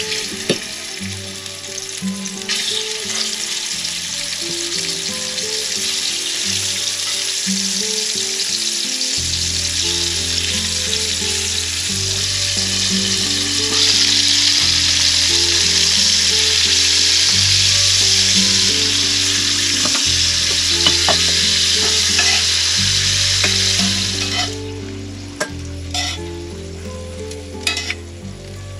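Pork chops frying loudly in bacon grease in a cast-iron skillet, a dense steady sizzle. Near the end the sizzle drops off sharply, and a few clicks of a utensil on the pan follow as the chops are turned.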